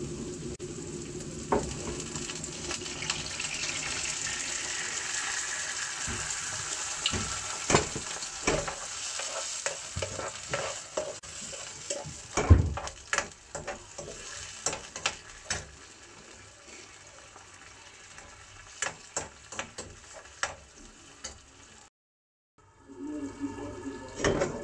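White wine sizzling as it hits a hot non-stick frying pan of mushrooms and shallots, the sizzle slowly dying down as the liquid comes to temperature. A metal spoon stirs the pan, knocking and scraping against it many times through the middle, with one loud knock about halfway through; the sound cuts out briefly near the end.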